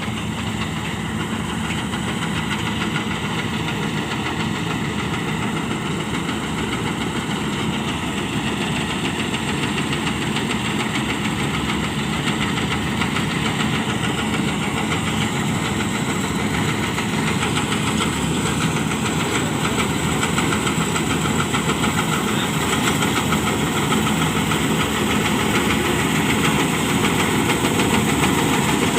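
Diesel engine of farm machinery running steadily, growing slightly louder toward the end.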